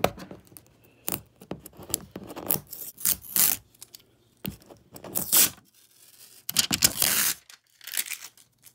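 Packaging being torn and peeled off a new plastic trash can close to the microphone: irregular crackling and scraping in short bursts, the longest lasting nearly a second about seven seconds in.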